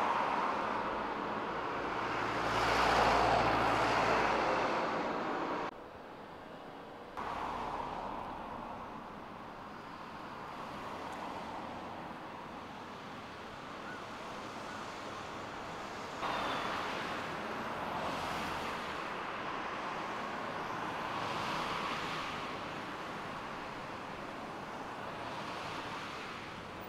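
Outdoor street ambience: a steady rushing hiss of traffic, swelling as vehicles pass every few seconds. The background drops and jumps abruptly a few times where the shots are cut.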